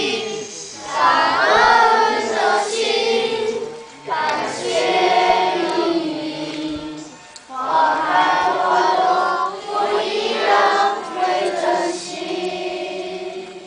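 A group of children singing a song together in phrases of a few seconds with short breaks between them; the singing trails off near the end.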